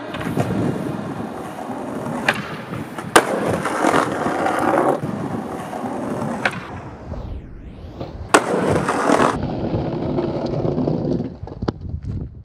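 Skateboard wheels rolling on pavement, with several sharp clacks of the board striking the ground; the loudest come about three seconds in and about eight seconds in.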